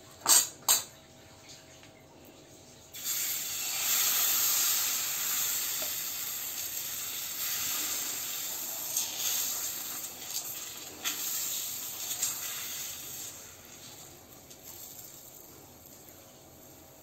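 Thin crêpe batter sizzling on a hot oiled iron frying pan as it is poured and spread with a ladle; the sizzle starts suddenly about three seconds in and dies down near the end. A few sharp clinks come just before it.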